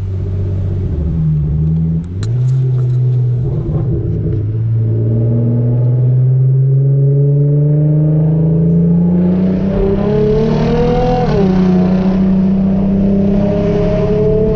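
Straight-piped Hyundai Genesis Coupe 3.8's V6 under way. The engine pitch drops about two seconds in, then climbs slowly for several seconds, dips once more near the end and holds steady.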